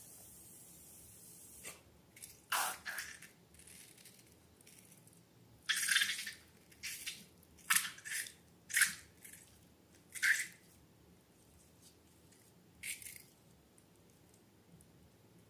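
Slime being handled: a series of short squelching and dripping sounds at irregular intervals, loudest in the middle.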